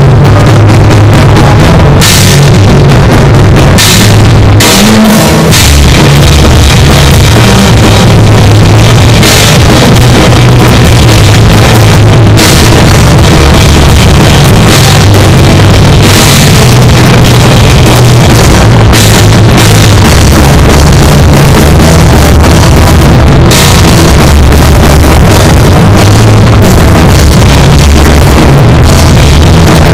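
Punk rock band playing loud, heard close to the drum kit: drums played hard with frequent cymbal crashes over electric guitar and bass.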